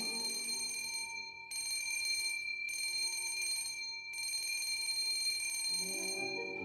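An electric bell ringing with a steady, shrill ring that breaks off briefly a few times. Low orchestral music comes back in near the end.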